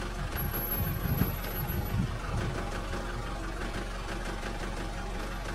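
Vehicle engine idling steadily, with a few louder low pulses between about one and two and a half seconds in.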